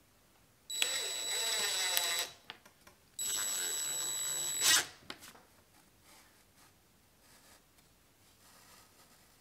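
DeWalt impact driver driving screws into plywood: two runs of about a second and a half each, with a steady high motor whine. The second run ends in a brief louder burst as the screw seats. Faint handling of the wood follows.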